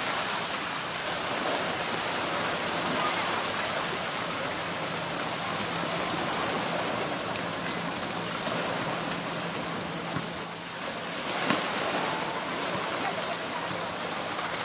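Steady, even hiss of water noise, such as rain or small waves washing on the shore.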